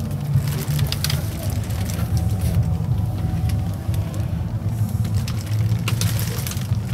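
Scania DC13 13-litre inline-six diesel idling steadily as a low rumble heard inside the truck's cab, with a few brief rustles and clicks over it.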